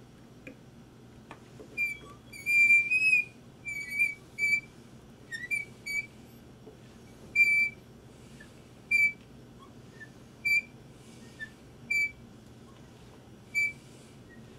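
Hand-cranked drill with a one-sixteenth-inch bit boring into wood, giving short high squeaks that repeat with the turning, roughly one every second and a half, with a longer squeak about two seconds in.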